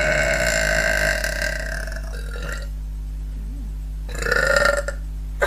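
Two deliberate belches from a woman, made by swallowing air on purpose. The first is long and steady, about two seconds, and the second, shorter one comes about four seconds in.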